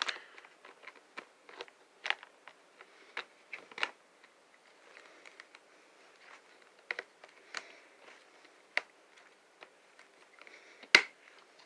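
Scattered clicks and knocks of hard plastic pet-step pieces being handled and pressed together to snap into place, with one loud sharp knock near the end.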